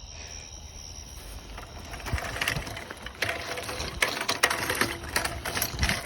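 Irregular mechanical rattling and clicking, growing louder from about two seconds in, over a low rumble.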